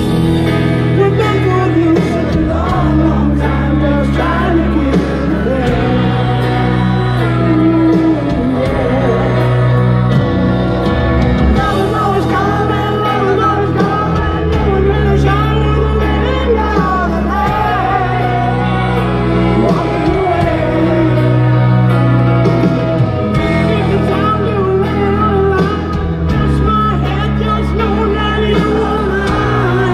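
A live rock ballad from a large concert, heard from the audience: a male lead vocal over piano and the band's long held chords, which change every few seconds.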